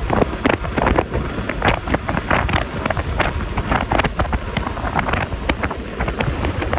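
Wind buffeting the microphone of a moving Yamaha Lexi LX 155 scooter in rapid, irregular gusts, over a steady low rumble of the scooter and the road.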